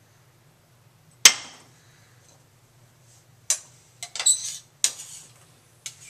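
A metal espresso filter basket holding fresh coffee grounds dropped onto the countertop from about six inches, landing with one sharp metallic clank that rings briefly, about a second in. Several lighter clinks and taps of the metal basket on the counter follow in the last few seconds.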